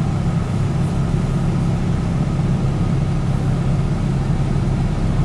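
Car's engine and road noise heard from inside the cabin, a steady low hum while driving in traffic.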